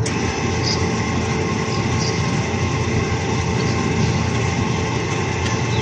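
Volkswagen's rear electric parking brake caliper motors running steadily with a constant whine, driving the spindles out to close the calipers.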